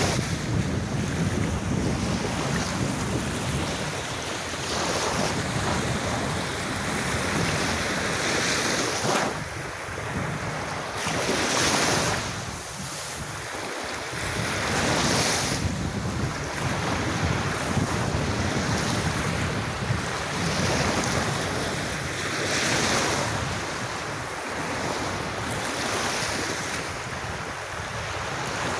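Sea waves breaking and washing up a beach, the surf swelling and ebbing every few seconds, with wind rumbling on the microphone.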